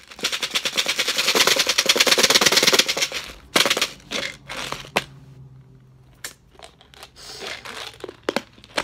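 Jelly beans rattling rapidly inside a plastic container being shaken for about three seconds, then a few scattered clicks and a softer rattle near the end.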